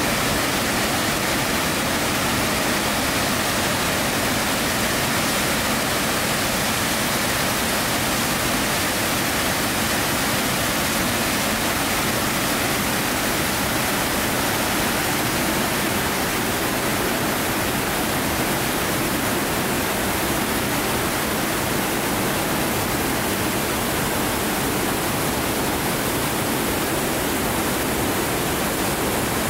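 Great Falls of Tinkers Creek, a wide waterfall pouring over a rock ledge into rapids: a steady, even rush of falling water.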